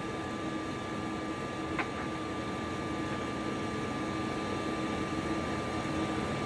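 Space station cabin ventilation noise: a steady whir of fans and air circulation with a constant hum tone, and one faint click about two seconds in.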